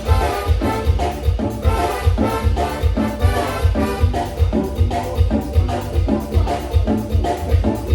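Latin dance music played by a band with horns and percussion over a steady beat.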